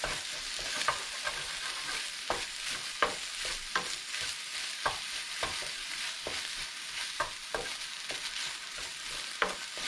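Fried rice sizzling in a hot pan while a spatula stirs and tosses it, with a steady hiss and frequent irregular scrapes and knocks of the spatula against the pan.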